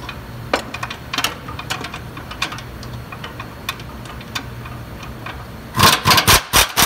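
A power wrench driving the transmission's bell-housing bolts home in about six quick, loud bursts near the end, after scattered light clicks of bolts being run in, over a steady low hum.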